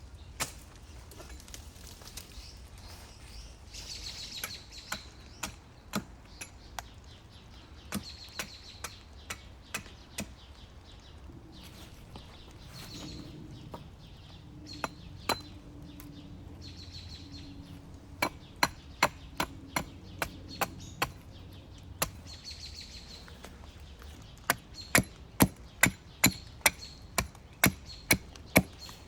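Repeated sharp knocks of a tool striking wood, with scattered single strikes at first, then steady runs of about two to three strikes a second. The loudest run comes near the end.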